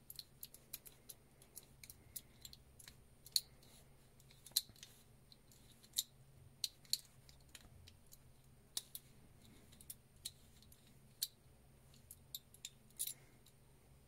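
Small, sharp metallic clicks at irregular intervals as a key is worked in a Nissan 300ZX (Z31) ignition lock barrel test-fitted in a replacement lock cylinder housing and turned by hand.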